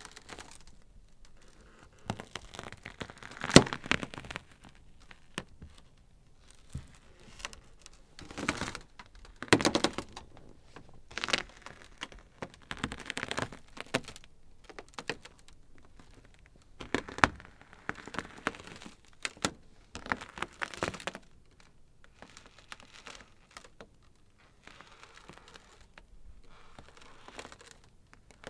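Ice crackling: irregular sharp cracks and clusters of crackles, with a single loud crack about three and a half seconds in and quieter gaps between the busier stretches.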